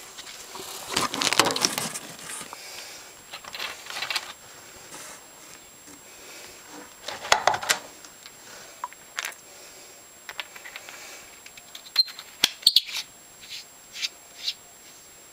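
Handling noise as a dive flashlight and its charger are taken out of a cardboard box with foam packing: rustling and scraping in bursts. Several sharp clicks come in quick succession about twelve seconds in, followed by lighter ticks as the flashlight is turned in the hands.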